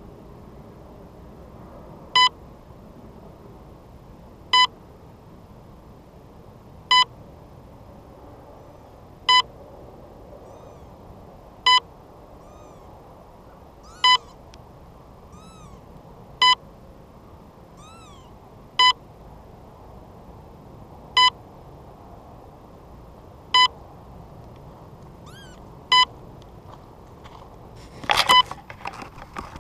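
An electronic beeper on a crashed RC model gives one short, loud beep about every two and a half seconds, with faint bird chirps between the beeps. Near the end comes a burst of rustling and knocking as the camera is handled.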